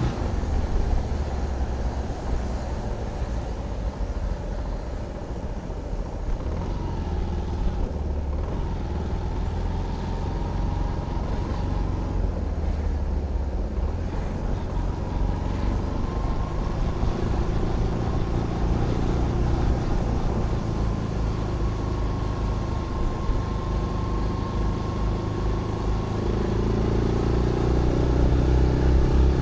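Zontes GK 125 single-cylinder motorcycle engine running under way, growing louder and revving higher near the end.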